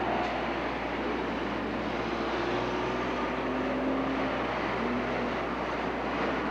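Street traffic: a city bus and cars driving past, a steady road and engine noise with a faint engine drone that comes and goes.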